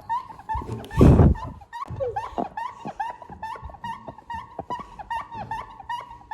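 A steady run of short, high squeaks repeating about three times a second, with one loud thump about a second in.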